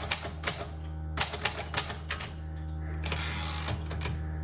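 Keys of a 1938 Royal Model O manual typewriter struck one at a time at an unhurried pace: separate sharp clacks with uneven gaps, and a longer noisy stretch about three seconds in.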